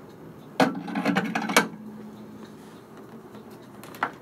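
Moonray 3D printer's build platform being handled and seated back on its mount: a burst of knocks and rattles lasting about a second, then a single click near the end.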